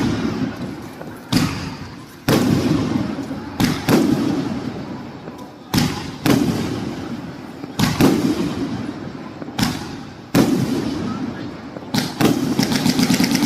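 A consumer firework cake (a 568-shot multi-tube barrage) firing a shot every second or so. Each sharp report is followed by a decaying rumble, and a rapid crackle comes near the end.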